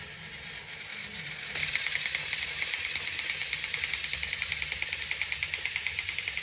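Battery-powered toy train running along plastic track: a steady small-motor whir, with rapid, even clicking from about a second and a half in.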